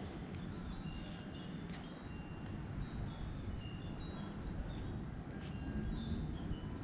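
Outdoor ambience: a steady low rumble with scattered short, high-pitched chirps and tones.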